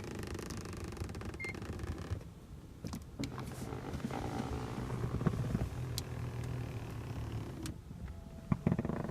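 Electric motors of a 2015 Hyundai Equus front passenger power seat whirring as the seat slides and tilts, in two runs of a few seconds each, stopping about a second before a couple of clicks at the end.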